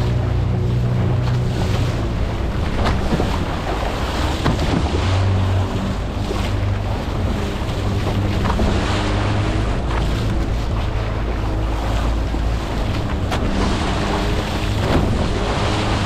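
Small fishing boat's engine running steadily, with wind buffeting the microphone and a rough, choppy sea around the hull.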